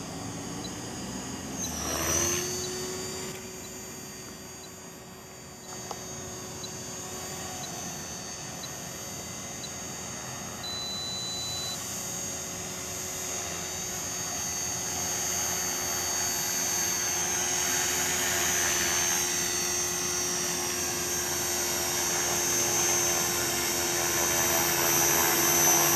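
Align T-Rex 450 Sport electric RC helicopter in flight, its motor and rotors giving a steady high whine. About two seconds in there is a brief loud rush as the whine dips in pitch and recovers. The sound then fades a little and grows steadily louder as the helicopter comes in close to hover.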